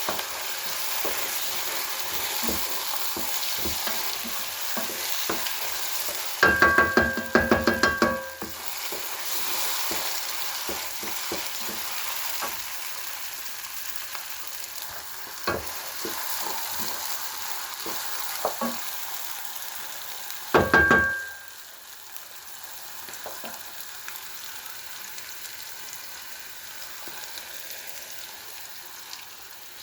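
Tomato frying in a pot, a steady sizzle with small scrapes and ticks of a spoon stirring. A quick run of loud ringing metal clanks comes about six seconds in and again briefly around twenty-one seconds, after which the sizzle is quieter.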